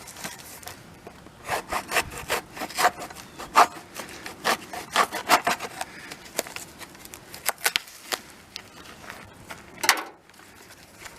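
Cardboard package being opened by hand: irregular tearing, scraping and rustling of the box and its packing.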